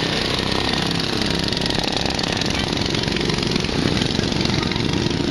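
Racing lawn mower engines running, their pitch rising and falling as they rev.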